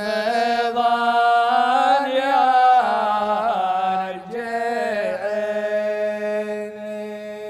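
Male voice chanting a shaylah (Gulf Arabic sung poem), drawing one word out into long wavering held notes over a steady low hum. The notes change twice.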